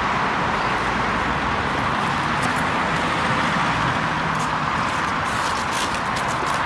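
Steady road and traffic noise: an even rushing hiss with a faint low engine hum and no horn blast.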